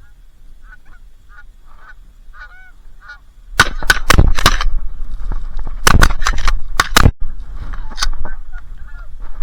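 Geese honking in short repeated calls. From about three and a half seconds in, much louder sharp cracks and a heavy low rumble from wind on the microphone take over.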